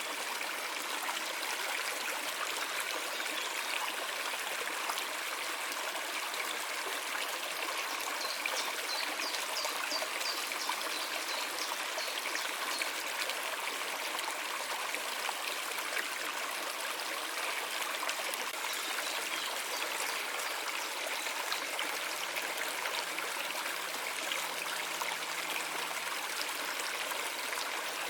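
A stream of water running steadily, an even, unbroken rush and trickle.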